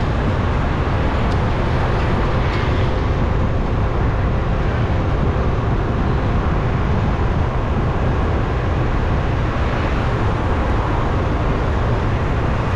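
Steady street traffic noise: a constant low rumble of passing vehicles, with no single event standing out.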